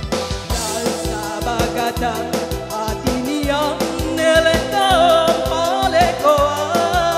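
Live band music with a steady drum beat, and a singer's voice coming in over it about three seconds in.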